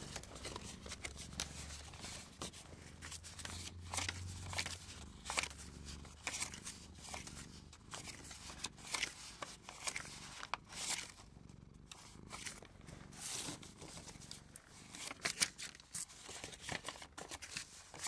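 Small paper cards or photographs being handled and flipped through by hand: close-up rustling with light taps and clicks. A low hum underneath fades out about six seconds in.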